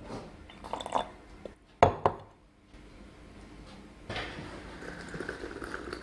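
A metal ladle knocking against cookware at a gas stove, giving a few short clinks, the sharpest just before two seconds in.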